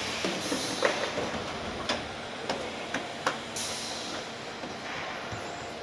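Car assembly plant floor noise: a steady mechanical din with scattered sharp metallic knocks and two spells of air hiss.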